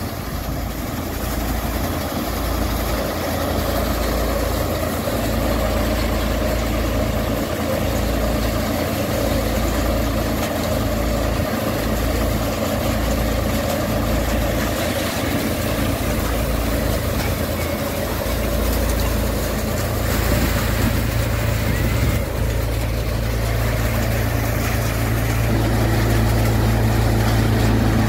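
Tractor-driven Bir Singh & Sons multi-crop thresher running steadily while threshing groundnut plants: a continuous mechanical drone of the engine, threshing drum and fan. The low hum grows steadier and a little louder near the end.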